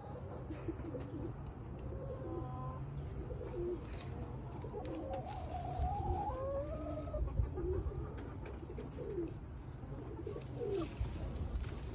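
Hens in a nest box clucking softly in a string of short low calls, with one longer rising-and-falling call about six seconds in. The hen is sitting on the nest as a hand reaches under her for the eggs.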